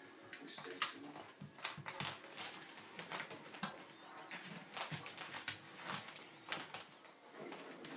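Irregular clicks and scrapes of a golden retriever squeezing flat under a pet gate on a tile floor, with a few sharper knocks among them.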